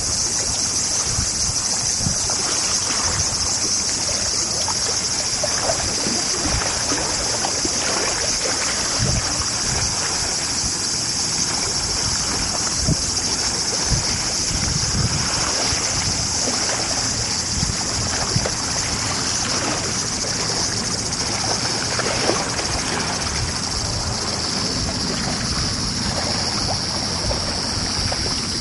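Shallow river running fast over a rocky bed, a steady hiss of moving water, with occasional low gusts of wind on the microphone.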